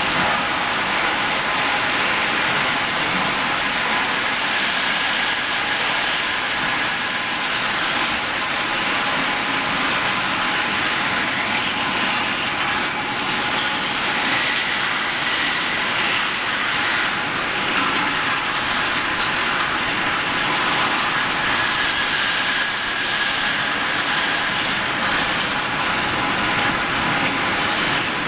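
Steady industrial din of a running angle-steel section rolling mill, its cooling bed and conveyors moving hot steel bars, with faint steady whines over the noise.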